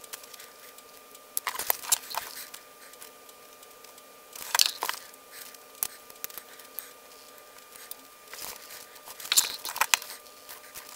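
Small plastic circuit board assembly handled by hand and pulled apart: three short bursts of clicks and crackles, a little apart, from plastic parts and the board.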